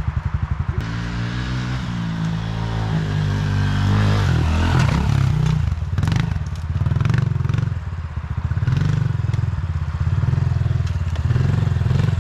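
Honda CRF110F pit bike's small single-cylinder four-stroke engine idling, then revving up with a rising pitch as the bike pulls away over the dirt jump. A few sharp knocks about six seconds in around the landing, then the engine revs up and down as the bike rides on.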